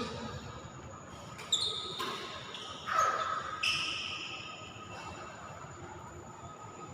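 Badminton play on a court: a cluster of four sharp hits and short high squeaks, like shoes on the court floor, between about one and a half and four seconds in, one squeak sliding down in pitch.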